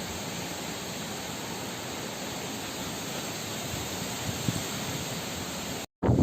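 Steady, even rushing hiss of stormy wind and rain. Near the end it cuts out abruptly, then louder wind begins buffeting the microphone.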